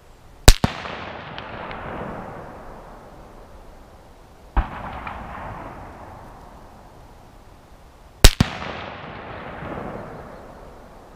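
Rifle shots from an A1-pattern AR-15 firing 5.56 NATO: two loud cracks about eight seconds apart, each with a quick second report, and a fainter shot between them. Each shot is followed by a rolling echo lasting a couple of seconds.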